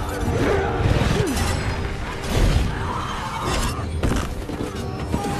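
Film battle sound effects: repeated crashing, shattering impacts over a deep rumble, mixed with the film's music score.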